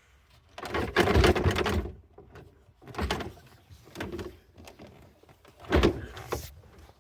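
Hard plastic scraping and knocking as the car's media player and its dashboard trim are pushed and worked into the dash opening, in four rough bursts, the longest and loudest about a second in.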